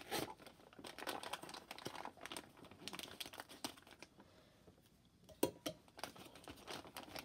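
Scissors cutting through a plastic poly mailer bag and the plastic crinkling as it is handled and pulled open, quieter for a moment about four seconds in. A sharp click a little after five seconds as the scissors are set down on the desk.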